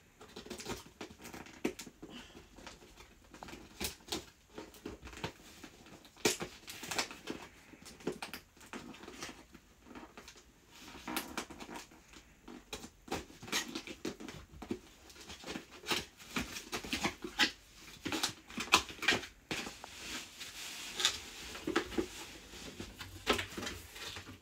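Fingernails scratching and picking at packing tape on a cardboard box, a run of irregular scrapes, taps and small tearing sounds, with the cardboard flaps being pulled open near the end.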